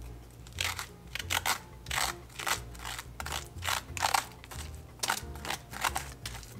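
Metal spoon scraping seeds and stringy pulp out of a halved raw spaghetti squash: short scrapes in an uneven rhythm, roughly two a second.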